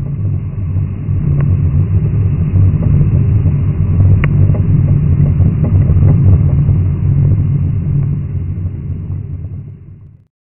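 Steady low rumble of wind and road noise on a bicycle-mounted camera's microphone while riding along a street, with a faint click about four seconds in. It fades out near the end.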